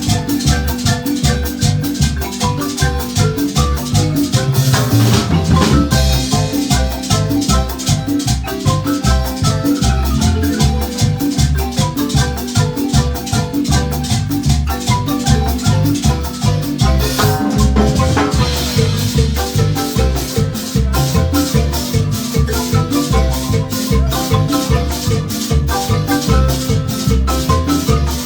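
Guatemalan marimba band playing an upbeat dance tune: fast struck mallet notes over a steady pulsing bass line, with rattling percussion keeping the beat.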